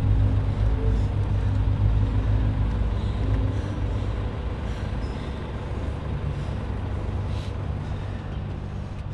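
A low, steady rumble that slowly grows fainter.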